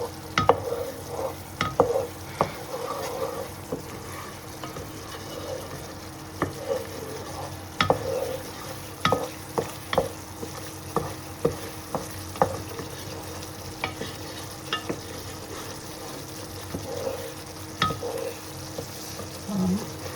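Curry paste frying in coconut cream in a saucepan, sizzling, while a utensil stirs and scrapes it, knocking sharply against the pan at irregular moments.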